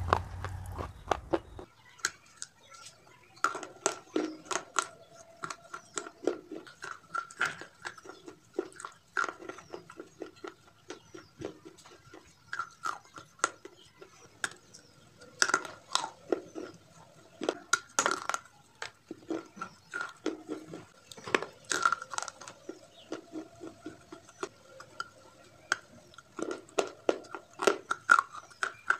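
Crunching and chewing of broken baked-clay pipe pieces coated in a creamy paste, close to the mouth. Irregular sharp crunches come several times a second, with quieter chewing between them. A low rumble at the start cuts off about two seconds in.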